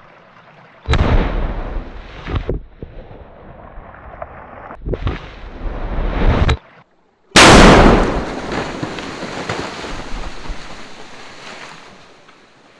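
Tannerite in a two-liter bottle exploding in a beaver dam, heard as three sharp blasts: one about a second in, one about five seconds in, and the loudest at about seven and a half seconds. The first two cut off suddenly. The last one trails off in a long fading rumble.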